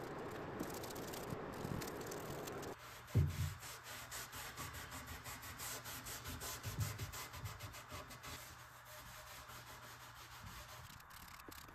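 A paintbrush scrubbing black paint onto the wooden bench legs. About three seconds in it gives way to a thump and then to a cloth rubbing walnut stain into the pallet-wood bench top in quick, even wiping strokes that fade toward the end.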